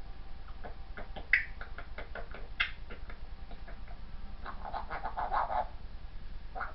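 African grey parrot beatboxing: a string of separate clicks and pops, then a denser, quicker run of clicks about two-thirds of the way through.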